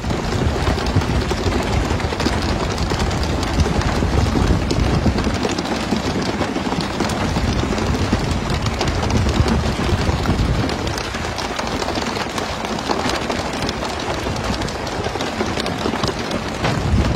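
Steady rush of sea water and spray breaking along a fishing boat's side, swelling and easing, with a scatter of small knocks throughout.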